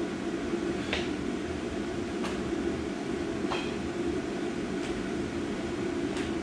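Steady low mechanical hum, with soft footfalls on rubber floor mats about every second and a half as a person side-shuffles in socks.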